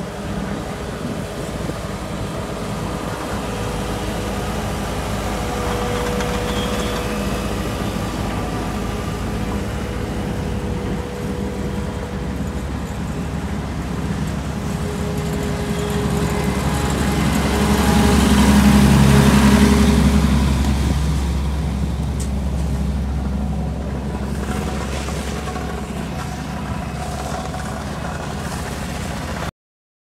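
Diesel engine of a tandem steel-drum asphalt roller running as it drives past on fresh asphalt. It grows louder to a peak about two thirds of the way through, eases off, and cuts off suddenly near the end.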